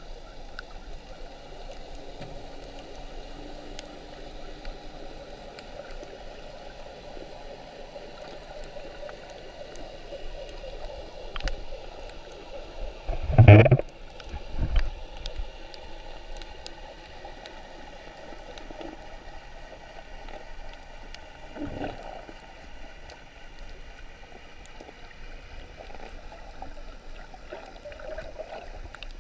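Muffled underwater sound through a GoPro's waterproof housing: a steady low rush of water. A few louder sudden bursts stand out, the loudest about halfway through.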